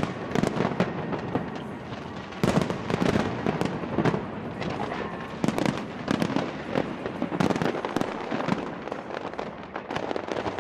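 Fireworks going off: a dense, irregular run of bangs and crackles, several a second, with a louder cluster of bursts about two and a half seconds in.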